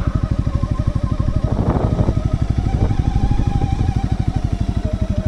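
Segway Snarler AT6L's 570cc single-cylinder engine running at low revs with steady, even firing pulses while the ATV crawls along a forest trail, a whine riding over it. A brief clatter comes about a second and a half in.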